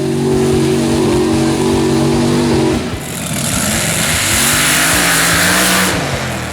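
A mud-drag truck's engine revving hard and held at high revs, dipping briefly about halfway, then climbing in pitch again under a loud hiss that lasts about three seconds.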